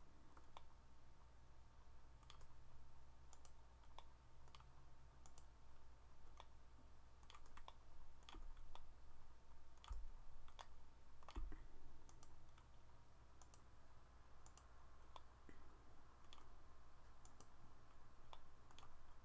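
Computer mouse clicking, faint and irregular, about one click a second, over a low steady hum.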